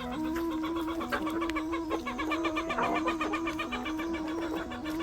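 Background music: a simple melody of held notes stepping up and down over a quick, even beat.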